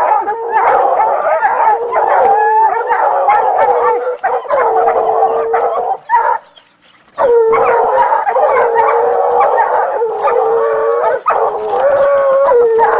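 Hunting hounds baying: long, drawn-out howling calls that overlap almost without a pause, the steady bay of hounds holding their quarry. The calls break off for about a second partway through, then resume.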